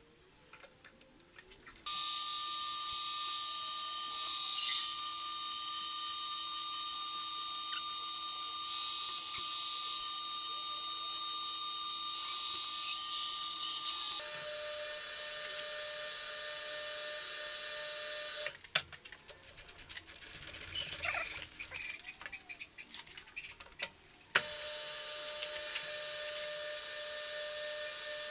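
Metal lathe cutting a metal bar: a steady machine whine with a hiss of cutting starts about two seconds in and is loud, then steps down to a quieter, different-pitched run while the end face is cut. After a few seconds of irregular knocks and rattles, the lathe runs steadily again as a drill in the tailstock chuck bores into the end of the bar.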